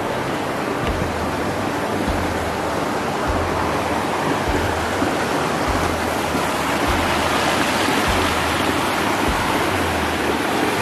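Small creek water rushing over rocks and little cascades, a steady hiss, with a soft low thump about once a second.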